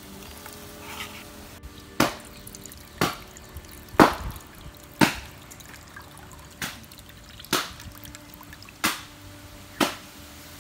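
Liquid dripping: eight sharp drops at roughly one-second intervals, the third the loudest.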